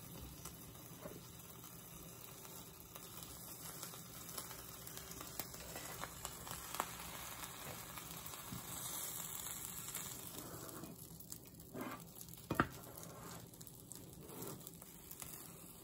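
Butter sizzling faintly in a frying pan as a ham and cheese sandwich grills over raised heat. A few light clicks of a spatula against the pan in the second half.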